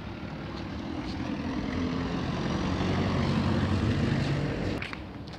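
A motor vehicle's engine passing by: its hum grows louder for about four seconds, then falls away sharply near the end.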